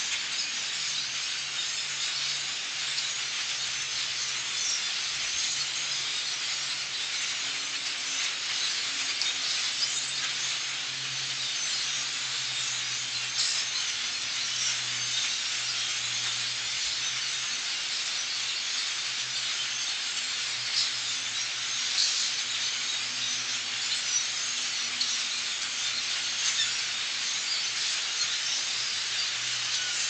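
Continuous chatter of a large migrating flock of birds passing over the treetops: many calls blending into a steady hiss-like wash, with sharper single calls standing out now and then.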